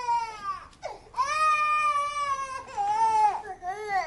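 Infant crying in a series of pitched wails: a short cry, one long drawn-out wail of about a second and a half, then two shorter cries, breaking off suddenly near the end as the baby stops crying.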